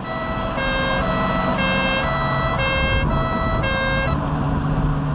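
A police car's two-tone siren, switching between two pitches about every half second, over the car's engine and road noise. The siren stops about four seconds in, leaving the engine's steady hum.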